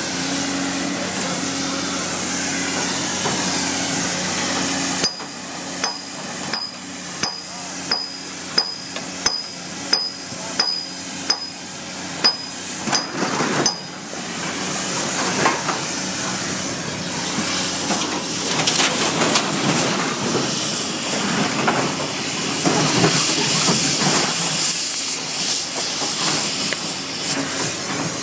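Steady hiss of an oxy-fuel cutting torch over a low machine hum. About five seconds in, a run of around a dozen hammer blows on steel follows, roughly one and a half a second, each with a bright ring, knocking the cut cylinder end fitting loose. The hiss then carries on.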